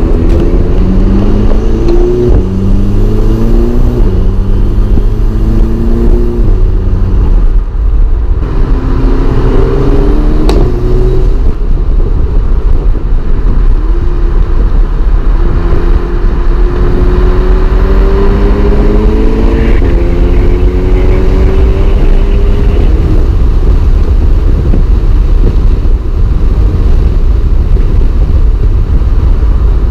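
Tuned Mk6 Volkswagen Golf R's turbocharged 2.0-litre four-cylinder heard from inside the cabin under acceleration, climbing in pitch and dropping back at each quick DSG upshift through the first several seconds, then pulling in one long, slower climb in a higher gear. Heavy wind and road rumble run underneath.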